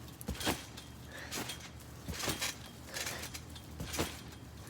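A person doing backflips in quick succession: a series of short thumps and rustles, about one a second, the loudest about half a second in.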